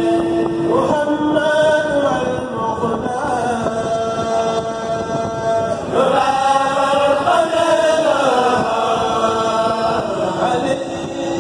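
A Mouride kourel chanting a religious poem a cappella: several men's voices sing into microphones in long held notes that glide slowly up and down.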